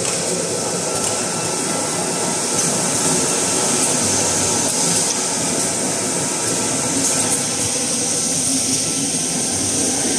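Automatic toilet-paper and kitchen-towel roll wrapping machine running, a steady mechanical noise of its conveyors and drives with a high hiss over it.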